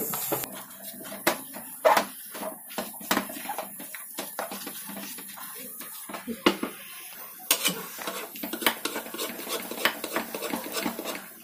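Metal kitchen utensils clinking and knocking against a pot, in irregular sharp knocks.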